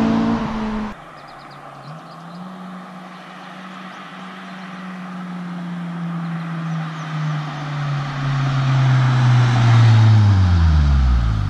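2007 Honda Civic Si's K20 four-cylinder, breathing through a K&N short ram intake and a Yonaka catback exhaust. A loud burst of its exhaust note cuts off about a second in; the car then approaches, growing steadily louder, and drives past near the end, its pitch dropping sharply as it goes by.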